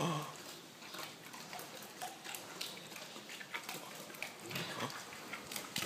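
Domestic pig eating dead chicks: faint wet smacking and crunching, with irregular small clicks as it chews.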